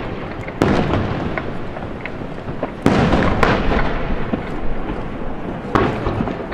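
Aerial firework shells bursting: four sharp booms, two of them close together about three seconds in, each trailing off in a long rolling echo.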